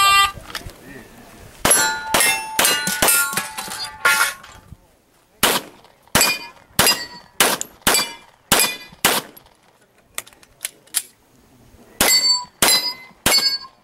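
Strings of 9mm pistol shots from a Glock 34 in rapid fire, starting about two seconds in, with steel targets ringing as they are hit. A fast string comes first, then a steadier one of about two shots a second, a short lull with faint pops, and four quick shots near the end.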